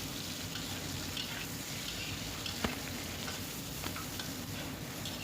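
Taro pieces and shredded carrot sizzling in hot oil as they are stir-fried. There is one sharp knock about two and a half seconds in.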